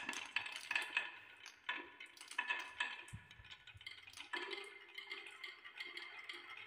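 Many glass marbles rolling on wooden tracks, clicking against each other and the wood in quick, irregular clicks. A little after halfway the sharp clicks thin out into a steadier rolling sound as the marbles run down wavy wooden chutes.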